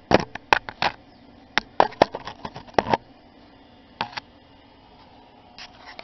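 A quick run of sharp clicks and light knocks for about three seconds, one more about a second later, then quiet.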